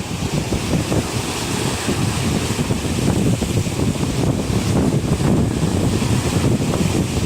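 Wind buffeting the microphone in a loud, gusting rumble, over a steady hiss of sea wash.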